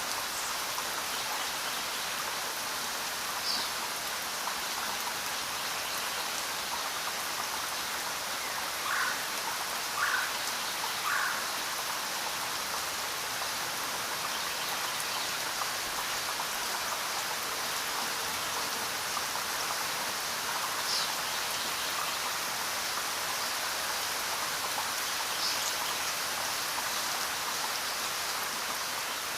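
Steady rain falling, an even hiss of drops. A few brief louder sounds stand out, three of them in quick succession about nine to eleven seconds in.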